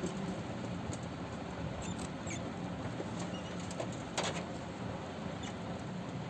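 Group of white rats feeding and scrabbling through grass and vegetable scraps, with soft pattering and rustling, a few short high squeaks, and a sharper knock about four seconds in.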